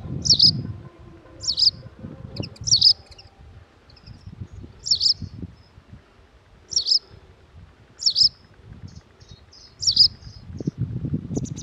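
White wagtail calling: about seven short, sharp, high-pitched calls spaced a second or two apart. A low rumble lies underneath at the start and near the end.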